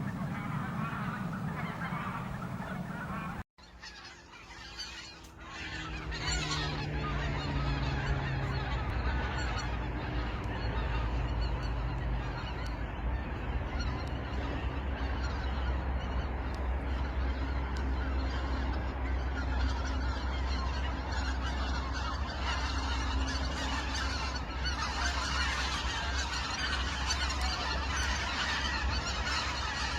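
Wild geese honking in many overlapping calls. About three and a half seconds in, the sound cuts out briefly and a new recording begins, with a steady low rumble under the honking.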